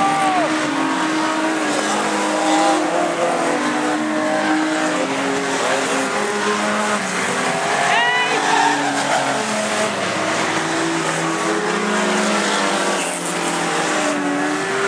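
Several old stock cars racing round a dirt oval, their engines revving up and down at different pitches all together. A short high rising squeal cuts through about eight seconds in.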